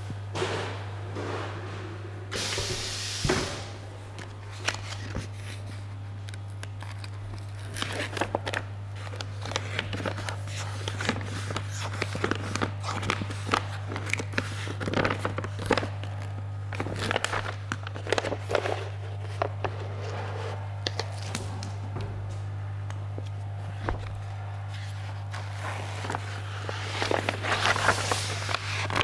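Vinyl sheet and backing paper being handled and smoothed on a laminating table: rustling, crinkling and scattered light taps and clicks, with a brief rasping burst about two to three seconds in, over a steady low hum.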